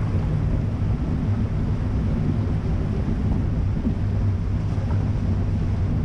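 Steady low rumble of a Nissan X-Trail SUV wading through a shallow river, water washing around the car, with wind buffeting the outside-mounted camera's microphone.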